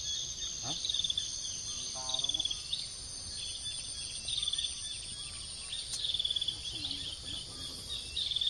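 Insects calling: a steady high-pitched whine with short chirping trills repeating over it.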